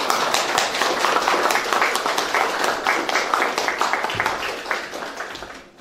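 Applause from a roomful of people, many hands clapping together, dying away near the end.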